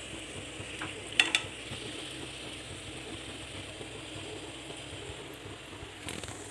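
Samosas deep-frying in hot oil in a pan, a steady sizzle, with a few sharp clicks of metal tongs about a second in.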